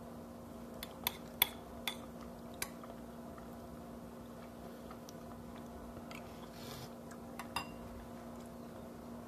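Metal spoon clinking against a ceramic bowl while stirring and scooping rice congee: five short, sharp clinks in the first three seconds, then two more close together about seven and a half seconds in, over a steady low hum.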